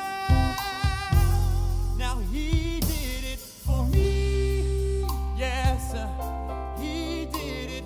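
Gospel song with a band: a male singer holds and bends notes without clear words over drums and sustained low bass notes.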